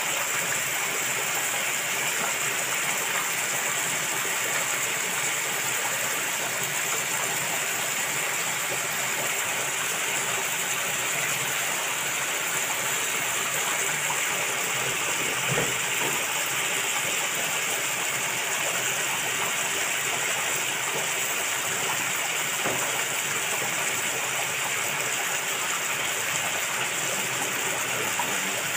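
Beef and onions frying in oil in a pan, a steady sizzling hiss, with a faint knock about halfway through.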